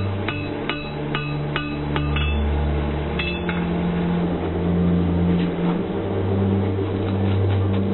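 Hammer blows on an anvil, each strike ringing briefly: a run of about two and a half blows a second for the first two seconds, then a couple more about three seconds in. Under them runs a steady low hum that shifts in pitch every second or two.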